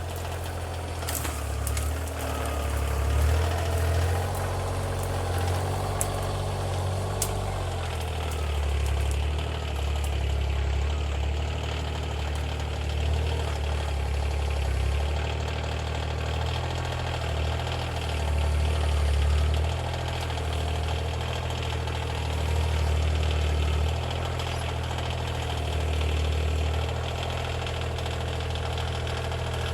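Compact tractor's diesel engine running steadily, its low hum swelling and easing every few seconds as it works under load. A few sharp clicks or snaps sound in the first several seconds.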